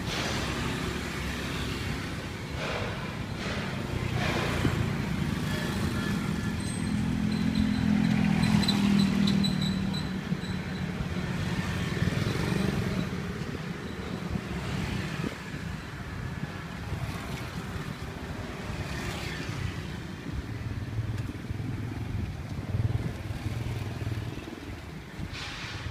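Street traffic: motor vehicle engines passing by, a steady low rumble that grows louder for a few seconds about a third of the way in and again later.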